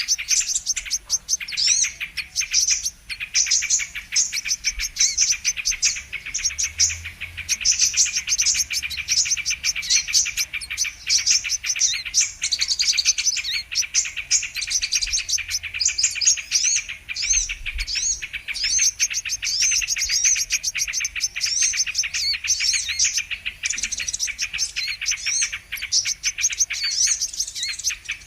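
Brown-throated sunbirds (kolibri kelapa) singing: a dense, unbroken stream of rapid, high chirps and trills, with several calls overlapping.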